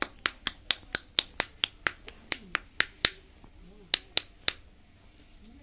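A quick run of about a dozen sharp snaps made with the hands, four or five a second, then after a short pause three more.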